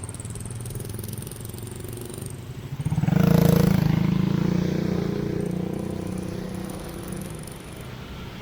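A motor vehicle passes close by: its engine comes up quickly about three seconds in, over a low traffic hum, and then slowly fades away.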